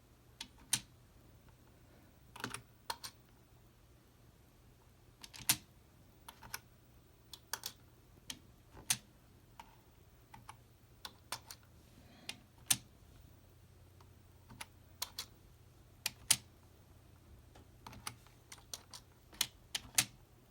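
Computer keyboard keys pressed one at a time by the typing attachment of a prosthetic hand: single sharp clicks at a slow, uneven pace, with pauses of up to a second or two between them.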